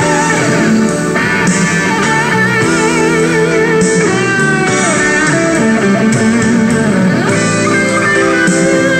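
Background music led by guitar, with wavering held lead notes over steady chords.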